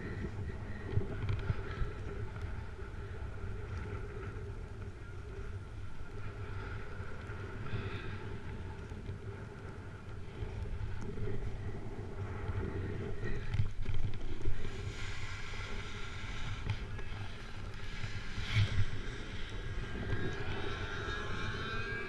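Snowboard sliding and carving over packed snow, with wind rushing over the GoPro's microphone: a steady low rumble with scraping swells, growing hissier and louder about two-thirds of the way in.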